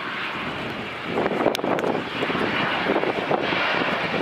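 Jet engine noise from a Boeing 787-9 Dreamliner on final approach with its gear down: a steady rushing roar that grows louder about a second in as the airliner comes closer.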